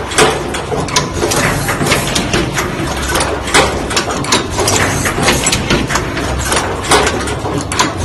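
Automatic power-cord plug insertion and crimping machine running: a steady mechanical hum overlaid with rapid, irregular clicks and clacks from its moving tooling, several a second.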